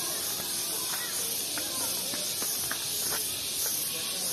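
A steady high-pitched hiss, with short faint chirps scattered over it.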